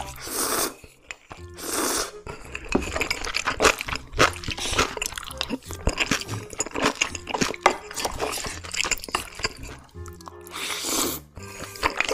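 Close-miked eating of jjajangmyeon (black bean noodles): three noisy slurps of noodles, at the start, about two seconds in and near the end, with wet chewing and mouth clicks between. Background music plays underneath.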